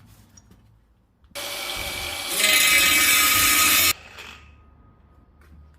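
A power tool runs for about two and a half seconds, steps louder a second in, then stops abruptly.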